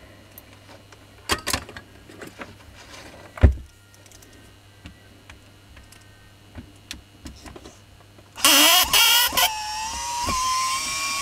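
Makita hammer drill's electric motor switched on about eight seconds in, starting harshly and spinning up with a rising whine, then running on with a steady high whine. Before that come handling clicks and a low thump as the tool and its cord are moved about.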